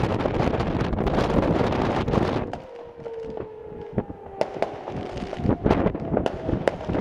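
Distant New Year's fireworks going off in a string of sharp bangs and crackles. Wind buffets the microphone for the first couple of seconds; after that it is quieter, and a faint drawn-out tone slides slowly down in pitch under the bangs.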